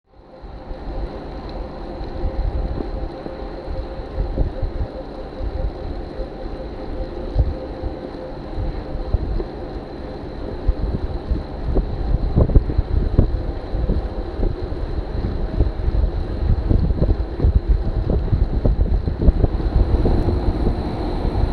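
Wind buffeting the microphone of a camera on a moving bicycle, with a low rumble of tyres on the road, growing gustier and louder about halfway through. A faint steady high tone sits underneath.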